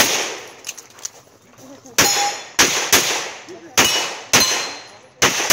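A string of pistol shots fired during an IPSC stage, each crack trailing off in echo. The first shot comes right at the start. A pause of about two seconds follows while the shooter changes position. Then six more shots come in quick, uneven succession.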